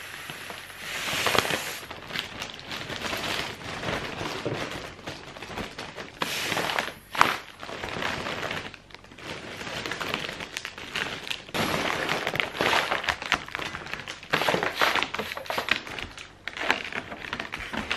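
Foil balloon crinkling and rustling as it is filled from a disposable helium tank, the gas hissing through the valve in several uneven bursts. A sharp click about seven seconds in.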